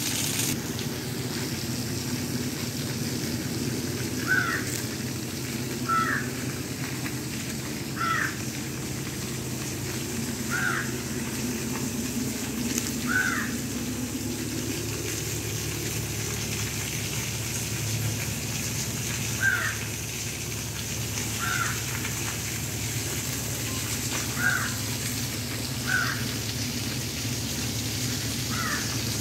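Artificial waterfall: a thin stream of water falling down a rock face and splashing steadily. A bird gives short calls about every two seconds.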